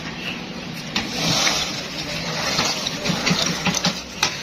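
Dry batasha sugar discs clicking and rustling lightly against each other as a hand scoops them up from a heap, with a cluster of small clicks near the end, over a steady hissy background noise.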